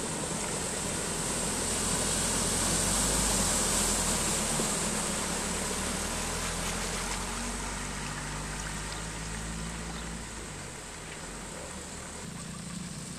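A vehicle's engine running as it drives through floodwater across the road, with rushing, splashing water. The sound builds over the first few seconds and then slowly fades.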